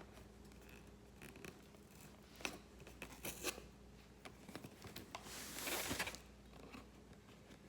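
Scissors cutting into a package, with scattered short snips and one longer rasping cut about five seconds in, the loudest moment.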